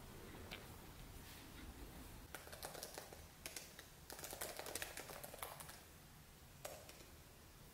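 Typing on a laptop keyboard: quiet runs of quick key clicks starting a couple of seconds in, with a single last click near the end.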